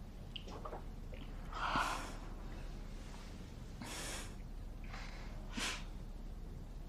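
Three short, breathy exhalations, about two seconds apart, the first the loudest.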